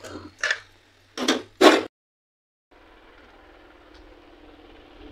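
A wooden plank door with a metal sliding bolt being handled and opened: four sharp knocks and scrapes in quick succession, the loudest just before two seconds in. After a short break comes a faint, steady outdoor background hum.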